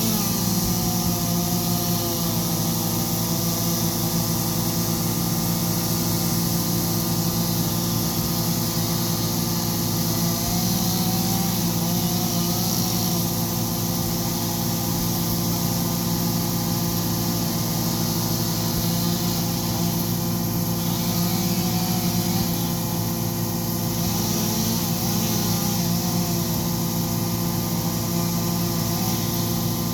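Excavator's diesel engine running steadily, with a fainter whine above it that wavers up and down in pitch.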